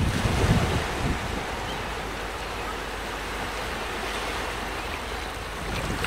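Sea surf breaking and washing over rocky ledges, a steady hiss, with some wind buffeting on the microphone in the first second.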